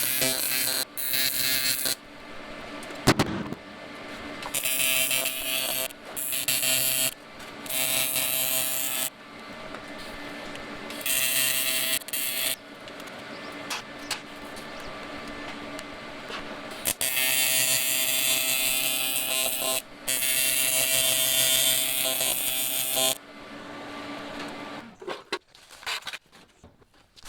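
AC TIG welding arc on aluminum, buzzing in several short bursts of one to three seconds each as the arc is struck and broken, with the welding machine's steady hum between them.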